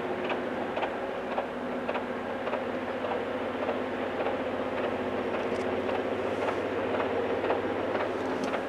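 Railroad rotary snow plow train working up the track, a steady diesel drone at an even pitch, with frequent irregular sharp clicks and ticks over it.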